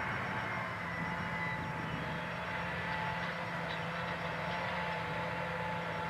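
John Deere 8345RT track tractor's diesel engine running steadily under load while pulling a 16-row corn planter: an even drone with a few held tones over it.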